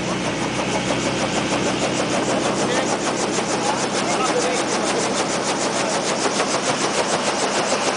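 Small helicopter running on the ground with its main rotor turning, an engine drone with a regular rotor beat that becomes more distinct in the second half.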